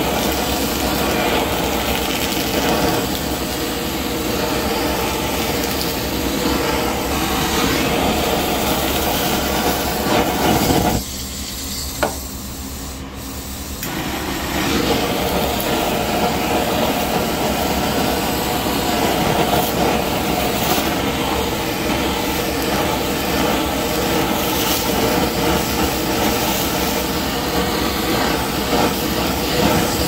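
Butane blowtorch on a portable gas canister burning with a steady hiss, searing mackerel fillets. About eleven seconds in the flame noise drops for a few seconds, with a single sharp click near twelve seconds, then comes back up to full strength.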